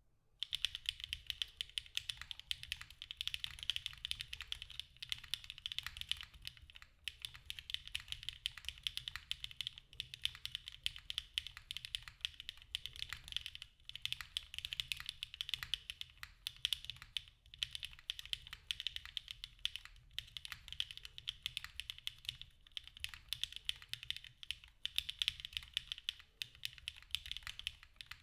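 Rapid, continuous typing on a HHKB-layout custom mechanical keyboard with lubed KTT Strawberry V2 linear switches and GMK keycaps: a dense stream of key clacks, broken by a few short pauses.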